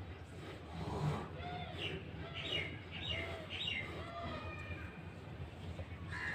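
Outdoor birds calling: a run of short, arched chirping notes through the middle, then a crow cawing near the end. There is a brief low sound about a second in.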